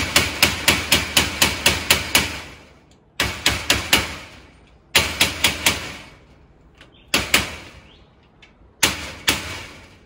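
Rubber mallet tapping a security screen door lock handle into place on the metal door. The taps come in quick runs of about six a second, a long run at first and then four shorter ones, with a brief ring from the door after each run.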